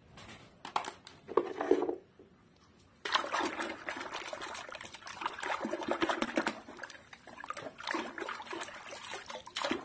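A few knocks of plastic toys being handled in the first two seconds, then from about three seconds in a hand swishes and sloshes through a basin of foamy soapy water, scrubbing the toys.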